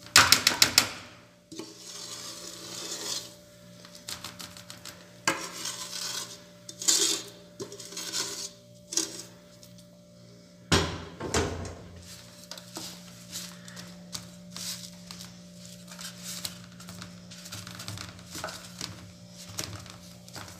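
Wooden spoon scraping and knocking thick cocada mixture out of a pot onto an aluminium baking tray, then scraping it across the tray to spread it. A rapid cluster of knocks comes right at the start and a single loud clatter about eleven seconds in, over a faint steady hum.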